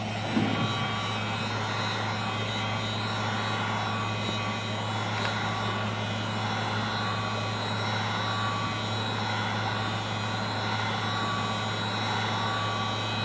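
Heat gun switched on right at the start and then running steadily: an even fan hum with a rush of hot air, blowing to warm the phone.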